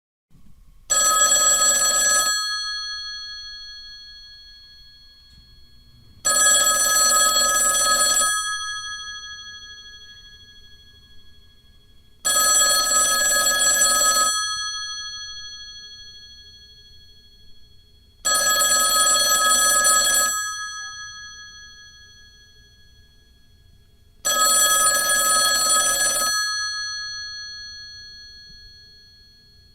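Intercom ringing: five rings about six seconds apart. Each is a bell-like ring of several steady tones, about a second and a half long, that fades away slowly.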